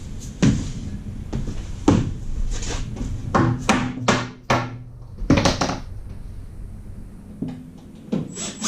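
Hammer knocking a fastener or piece into a wooden wall, about ten irregular strikes with a quick run of them in the middle.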